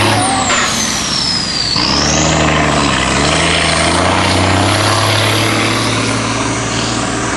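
Brush fire truck driving off under power, its engine pitch climbing and dropping as it goes through the gears. A thin high whine falls over the first second and a half, then rises again.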